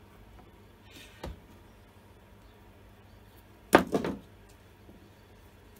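A short clatter of sharp knocks from hard objects being handled on a wooden workbench about four seconds in, after a single faint knock about a second in.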